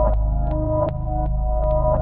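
Background music: a soft ambient synth track with sustained chords, a deep bass hum and short plucked notes.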